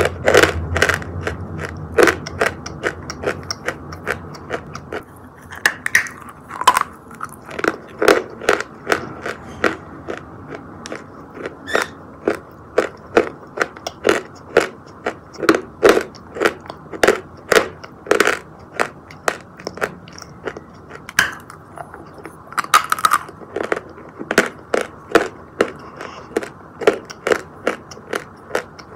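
Close-up crunching of a person biting and chewing chunks of white chalk: a steady run of sharp crunches, one or two a second.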